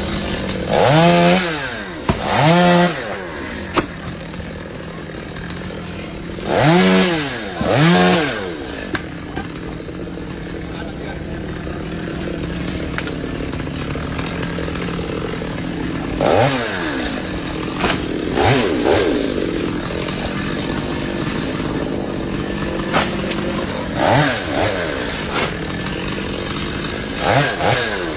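Chainsaw running at a steady idle, revved up and back down in short bursts about ten times, often two in quick succession.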